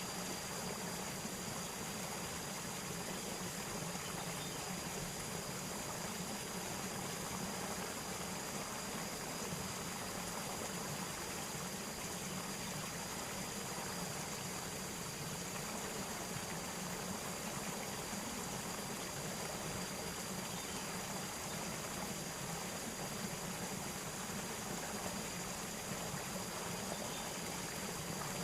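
Steady rush of flowing water, even and unbroken, with a thin steady high-pitched tone above it.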